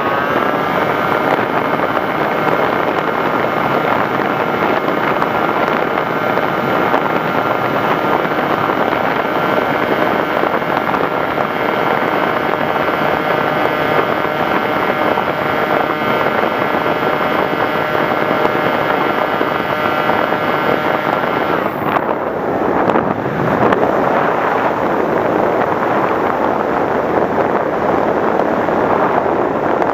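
Motor of a radio-controlled FPV model aircraft running at steady throttle, a whine with several steady tones over wind rushing past the microphone. About three quarters of the way in the motor tone cuts out, leaving a rush of wind noise.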